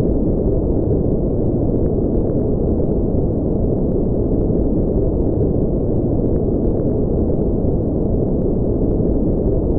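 Steady low rumbling noise, a brown-noise spaceship ambience with its energy in the low end and nothing bright above it. Its level does not change.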